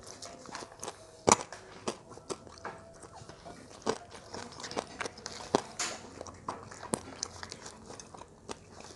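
Biting and chewing crispy deep-fried duck, its bones fried hard enough to be eaten: irregular sharp crunches, the loudest about a second in.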